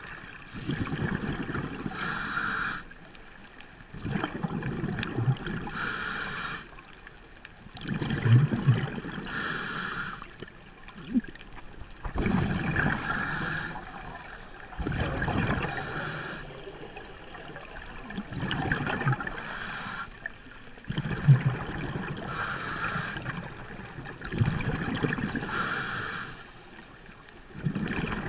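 Scuba diver breathing through a regulator underwater: each breath is a short hiss followed by a longer rumble of exhaust bubbles, repeating about every three and a half seconds.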